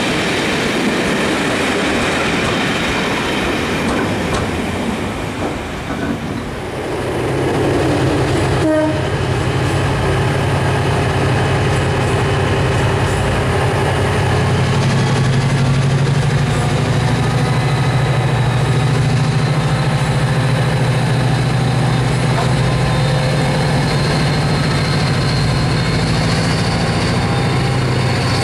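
Passenger coaches rumbling past over the rails, then a DRS Class 68 diesel-electric locomotive's Caterpillar V16 engine working under power as the train moves off. The engine is a steady low drone that takes over about seven seconds in and grows a little stronger partway through.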